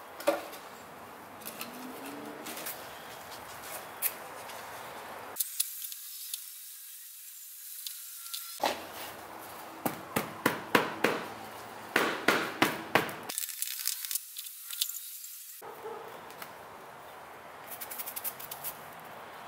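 Green sand being rammed into a wooden moulding flask with a wooden block: a series of sharp knocks, coming in quick runs through the middle at a few a second, between softer scraping and patting of the sand.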